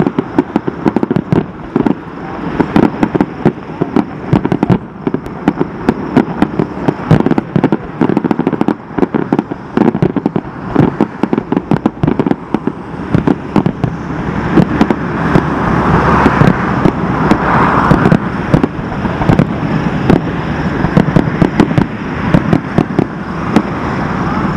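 Fireworks display: a dense, rapid string of bangs and crackling from bursting shells, one on top of another, growing a little louder about halfway through.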